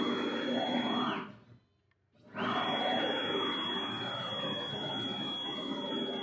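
An electric motor runs with a steady high whine. It winds down and stops about a second in, then starts up again and runs steadily.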